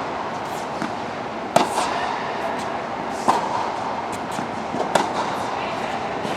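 A ball struck back and forth in a rally: sharp hits about every 0.8 s, alternating louder and softer, over a steady background hiss.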